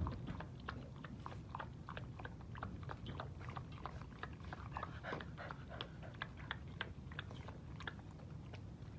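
Chow Chow puppy eating from a metal bowl: a quick, irregular run of small clicks and crunches, several a second.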